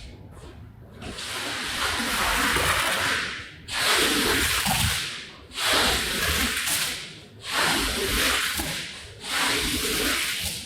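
A soaked rug being worked over in repeated hissing passes, about five strokes of a second or two each with short breaks between, the sound of water and a tool rubbing across wet pile.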